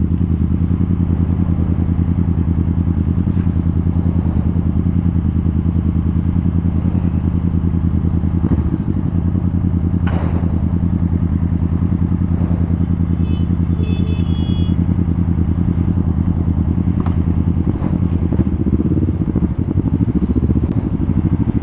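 2020 Honda Rebel 500's 471 cc parallel-twin engine running through an aftermarket full-system exhaust while the bike is ridden at a steady cruise. The engine note shifts briefly about nine seconds in and becomes uneven near the end.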